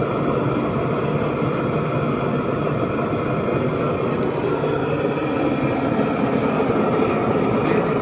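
Burner of a homebuilt LPG-fired melting furnace running steadily, a constant even rumble and hiss.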